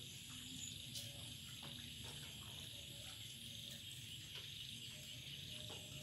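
Steady background chirring of insects, with a few faint clicks.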